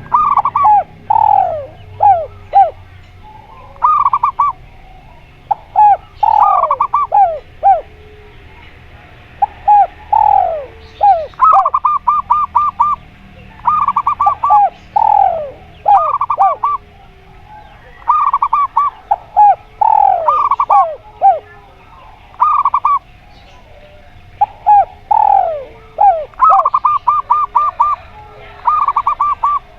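Doves cooing, zebra dove and spotted dove calls used as a lure to set caged doves calling. Short phrases come every second or two throughout, each a quick run of repeated notes or a few falling notes.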